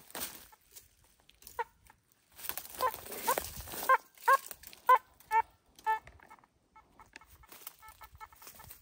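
A run of short pitched animal calls, about two a second, from about three to six seconds in, followed by fainter short calls.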